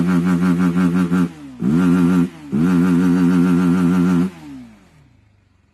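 Motorcycle engine held at high, steady revs with a rhythmic warble. Twice the throttle is briefly closed and the pitch falls before it climbs back up. About four seconds in the revs drop away and the engine fades out.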